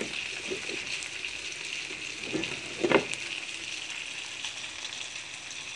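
Oil sizzling steadily as chicken pieces fry in a pan. A few light knocks of cookware come near the start, and a sharper clatter about three seconds in.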